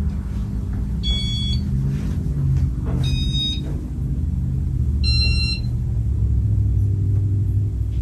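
Casablanca Nouvelle ceiling fan running, a steady low rumble mixed with music. Three short high beeps sound about two seconds apart.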